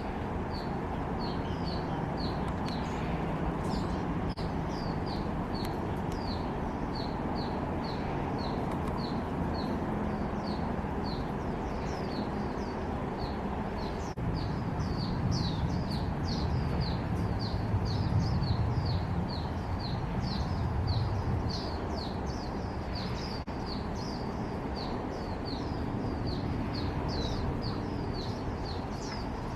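A small bird calling with short, high chirps repeated about two or three times a second, a little faster and more insistent in the second half, over a steady low background rumble.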